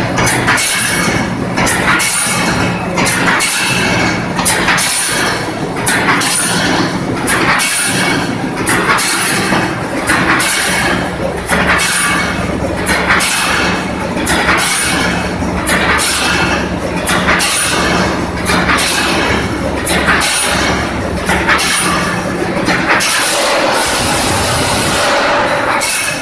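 Automatic 3D fence panel mesh welding machine at work: a rhythmic run of sharp clacks from the multi-head resistance welding and mesh pulling, about one to two a second, over a steady low hum. The hum stops near the end.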